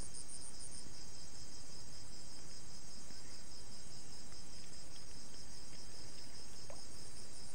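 Night insects calling steadily in a chorus of several high pitches. One fast-pulsing voice among them stops about a second in.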